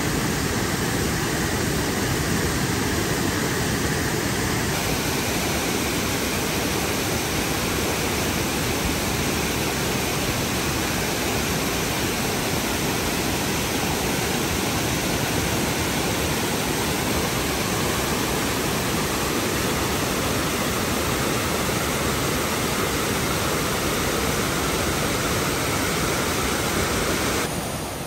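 Steady rushing noise at an even level, with no gusts and no distinct events, easing off slightly near the end.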